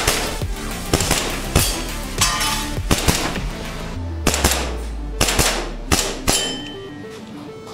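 EMG Staccato C2 2011 gas blowback airsoft pistol firing about a dozen single shots, roughly one every half second, each a sharp crack; the shooting stops about six seconds in. Background music plays throughout.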